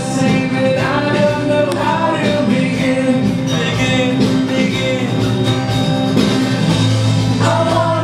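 Acoustic guitars strummed, with men's voices singing along, and a low held note coming in near the end.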